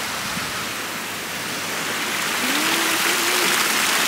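Fountain jets splashing into a tiled pool: a steady rush of falling water that grows louder about halfway through.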